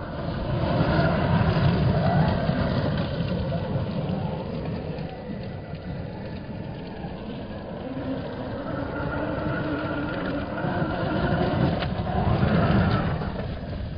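Radio-controlled short-course truck driving hard on gravel: its motor whine rises and falls as it accelerates and slows, over the crunch and hiss of the tyres on loose gravel.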